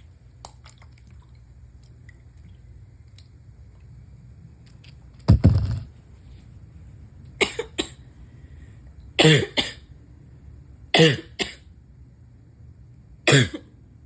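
A person with a cold sneezing repeatedly in a fit: five loud sneezes about two seconds apart, the first about five seconds in. Several come with a falling voiced intake before the burst.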